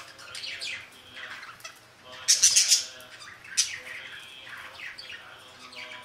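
A small flock of budgerigars chirping and chattering in a run of short, quick, high warbling notes. One louder, harsher call comes about two and a half seconds in.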